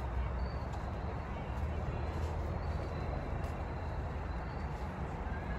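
Steady outdoor background rumble and hiss, with a few faint, very short high chirps.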